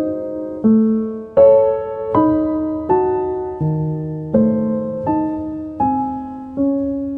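Slow piano music: chords struck about once every three-quarters of a second, each left to ring and fade before the next.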